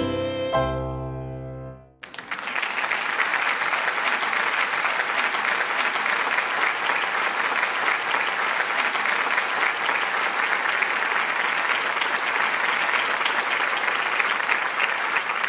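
The last sung chord of a choral Christmas song rings out and fades away. About two seconds in, steady applause starts and keeps going.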